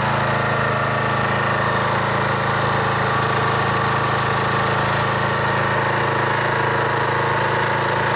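Briggs and Stratton single-cylinder push-mower engine running steadily on test.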